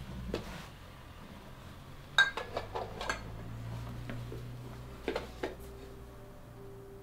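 Light clinks and knocks of small hard objects being handled, in a cluster about two seconds in and another about five seconds in, over a low steady hum.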